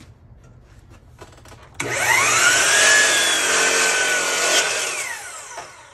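Kobalt electric miter saw switched on about two seconds in, its motor whining up to speed as the blade cuts through a wooden board. Near the end the trigger is let go and the whine falls in pitch as the blade winds down; a few light taps of handling come before the start.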